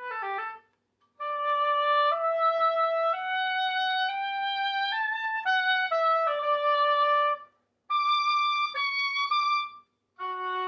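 Clarinet playing a slow melody of held notes that step upward and back down, with short pauses between phrases.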